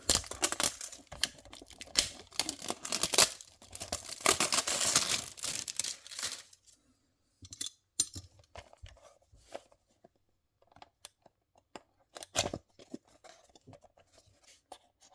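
Packaging being opened by hand: about six seconds of tearing and crinkling, then scattered light clicks and scrapes as the box is handled, with one sharper click later on.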